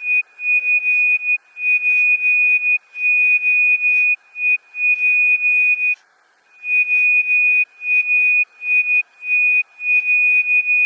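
Nokia 107 ringtone played in reverse: a single high beeping tone at one pitch, repeated in pulses of uneven length, each swelling up and cutting off abruptly, with a short pause about six seconds in.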